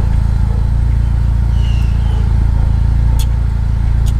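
Steady low hum of a running motor vehicle engine, with a couple of faint short high chirps about halfway through and light ticks near the end.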